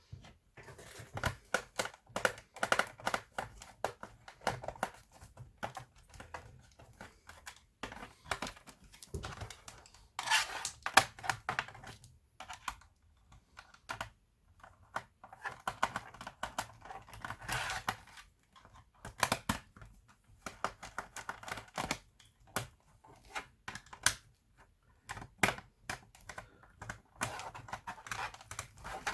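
Irregular clicks, taps and plastic rattles of hands working on an Asus X54C laptop, coming in dense spells with short pauses between.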